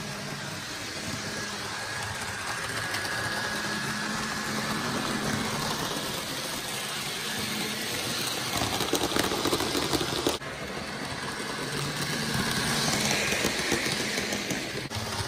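Bachmann Chuggington Wilson electric model train running on the track: a steady motor hum with a fine rattle of wheels and freight cars on the rails. The sound breaks off abruptly and resumes about ten seconds in.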